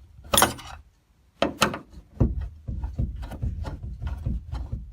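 Screws being worked out of an old doorknob's mounting plate with a screwdriver: a couple of sharp knocks, then from about two seconds in a quick run of clicks and scrapes as the screw turns.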